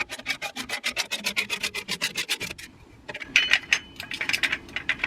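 Ratcheting handle clicking rapidly, about ten clicks a second, as a 2-ton scissor jack is cranked down. There is a short pause about two and a half seconds in, then the clicking resumes with a faint metallic squeak.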